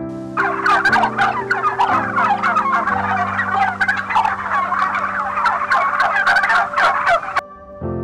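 Many birds calling at once in a dense, rapid chatter, with steady background music underneath; the calls cut off suddenly near the end.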